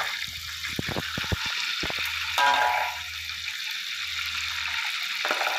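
Hot oil sizzling in a wok as deep-fried prawns are lifted and drained in a wire spider strainer, with a few light metal clicks about a second in and a brief pitched sound about two and a half seconds in.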